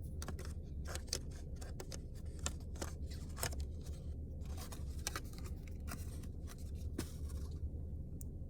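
Handling of a stylus and tablet: light, irregular clicks and taps, thinning out near the end, over a steady low hum.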